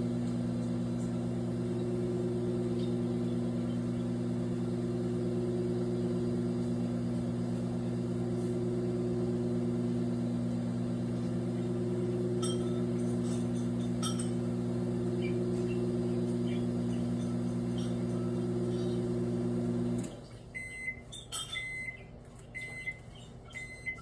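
Countertop microwave oven running with a steady hum, which cuts off about 20 seconds in, followed by four short beeps signalling the end of the cooking cycle.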